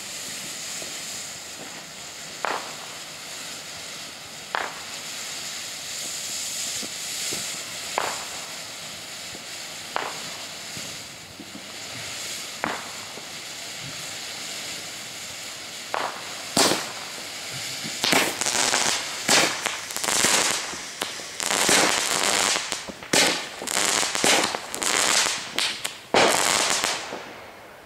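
A "Blue Star" ground fountain firework burning with a steady hiss of spraying sparks, with a sharp crack every few seconds. About two-thirds of the way in it breaks into dense crackling and popping, then cuts off as it burns out.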